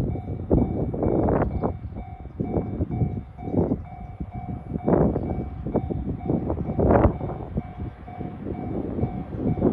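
Japanese level-crossing warning bell ringing in a steady, evenly repeated ding, over the rumble and clatter of a train running through the crossing, with a couple of louder knocks from the wheels.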